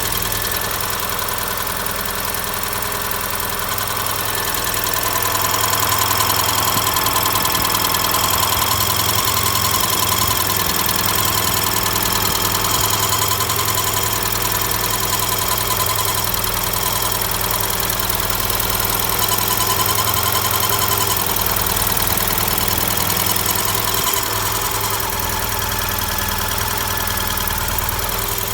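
Ford Sierra's 2.0 L OHC (Pinto) inline-four engine running with an extraneous noise in the engine, a fine rhythmic ticking over the steady running. It gets louder about five seconds in and settles back near the end.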